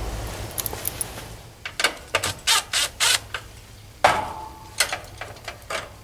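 Irregular clicks, short scrapes and rattles of tools and small parts being handled at an air-conditioning condenser's open electrical panel, with one sharp metallic knock about four seconds in that rings briefly.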